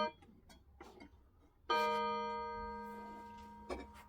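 Vintage pendulum clock's chime struck once about two seconds in, ringing at a steady pitch and slowly fading, after the tail of a shorter strike at the very start. A light knock comes near the end.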